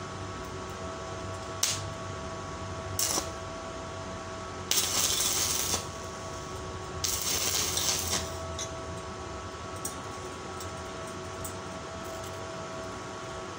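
Stick (arc) welding on thin steel strip: two short tack welds, each about a second of crackling and hissing arc, preceded by two short sharp clicks. A steady hum runs underneath.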